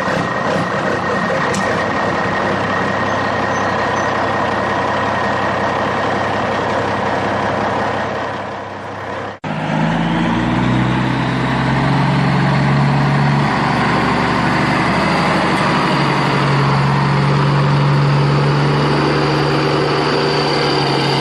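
Truck engine running steadily, cut off abruptly about nine seconds in, then resuming as a steady hum with a high whine that rises and then holds.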